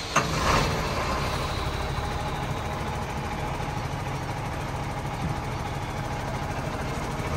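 Heavy diesel engine of a 16-tyre truck idling with a steady rumble. It comes in abruptly at the start, with a short louder burst in the first half-second.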